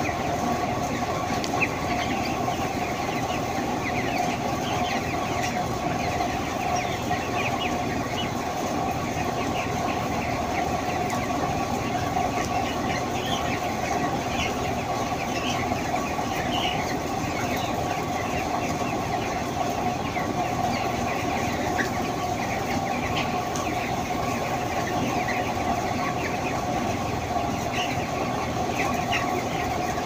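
A large flock of broiler chickens in a closed shed: many short, overlapping peeps and clucks over a steady machine hum.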